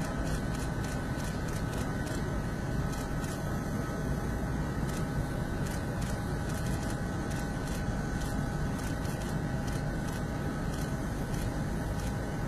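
Jet aircraft turbine running on the apron: a steady low rumble with a held, even whine above it. Faint clicks come and go throughout.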